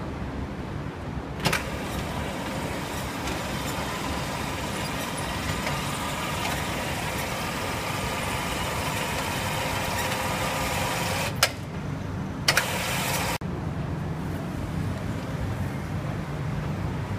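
Steady low engine rumble, with a hissing machine noise that switches on with a click about a second and a half in, cuts off suddenly about ten seconds later, then runs again for about a second.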